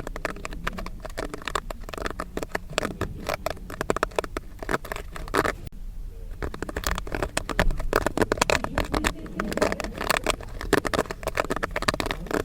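Popcorn kernels popping in a dense, rapid crackle of many small pops. The popping thins out briefly about halfway through, then picks up again.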